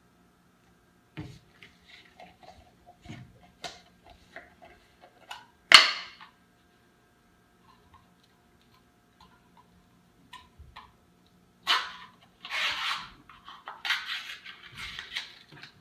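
Handling of a plastic Jif peanut butter jar: scattered small clicks and knocks, a single sharp crack about six seconds in, then a run of scratchy tearing and rustling near the end as the seal over the jar's mouth is picked at and peeled off.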